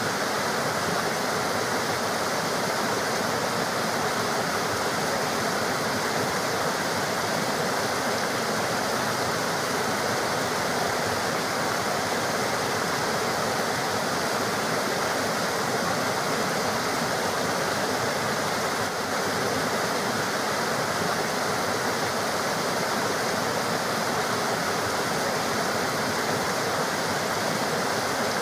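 River water running and splashing in a steady rush, with no change.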